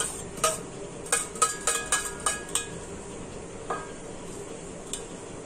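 Metal spoon scraping and clinking against a stainless steel plate and bowl while chopped ingredients are pushed off into the bowl. A quick run of sharp clinks with a short metallic ring comes about a second in, then a couple of single knocks of steel dishes.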